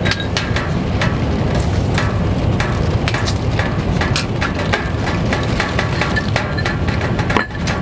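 Wood fire burning in a small tent wood stove, with frequent sharp crackles and pops over a steady low rush.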